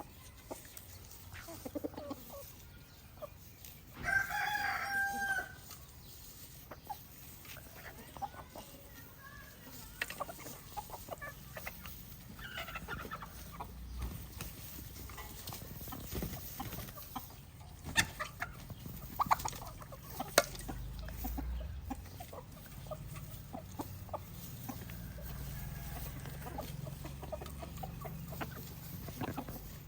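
Free-range chickens clucking, with a rooster crowing once, loudly, about four seconds in, amid scattered short clicks.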